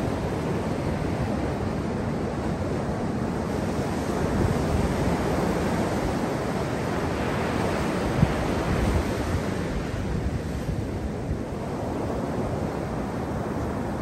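Atlantic surf breaking and washing up a sandy beach in a steady rush, swelling and easing as the waves come in, with wind buffeting the microphone.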